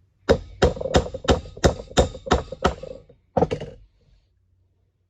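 Hammer striking a drift to drive a stuck part of an old pipe vise down: eight sharp, ringing blows at about three a second, then two more in quick succession after a short pause.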